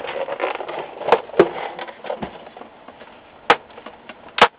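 Plastic housing of a Samsung SyncMaster 205BW LCD monitor being handled and set upright on its stand: rustling and two knocks in the first two seconds, then two sharp clicks near the end.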